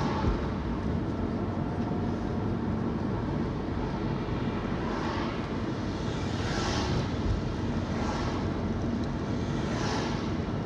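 Steady engine and road noise of a car being driven, with brief swells of rushing noise about five, seven and ten seconds in.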